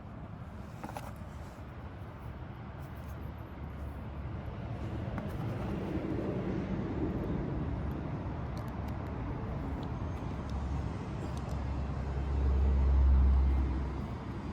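Low rumbling background noise that builds about a third of the way in, swells to its loudest near the end, then drops away. A few faint small clicks sit on top.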